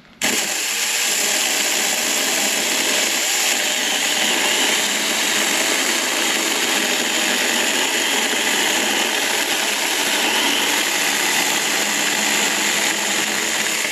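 Saker Mini cordless electric chainsaw with a 4-inch bar running steadily at full speed while cutting through a small log; the sound cuts in suddenly just after the start.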